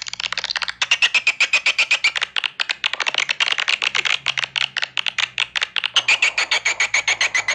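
Swiftlet call sound: a fast, unbroken chatter of short sharp chirps, about ten a second, with a ringing note running through it. This is the kind of swiftlet call played in swiftlet houses to draw the birds in.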